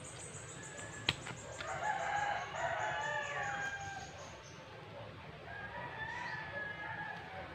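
A rooster crowing, a long call from about one and a half seconds in, with a shorter second call around six seconds. A high trill falls slowly through the first four seconds, and a hand tool knocks once sharply in the soil about a second in.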